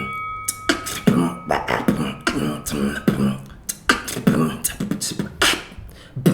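Vocal beatbox sound effects made with the mouth and throat: an irregular run of sharp clicks and short, low, throaty pitched sounds. A bell ring dies away in the first second and a half.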